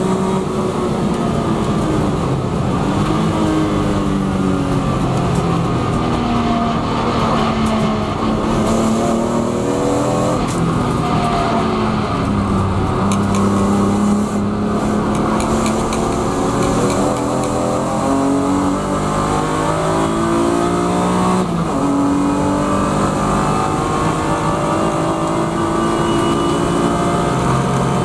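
BMW E36 M3 Evo's 3.2-litre straight-six race engine heard from inside the car at racing pace. The engine note falls under braking and downshifts for a slow corner, then rises and drops with each gear change as the car accelerates back onto the straight.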